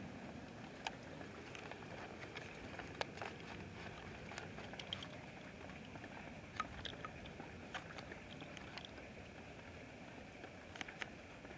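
Rain falling, a steady quiet hiss with scattered drops ticking irregularly close to the microphone.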